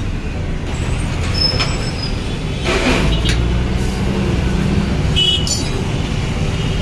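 Steady rumble of road traffic passing, with a brief louder rush of noise about three seconds in.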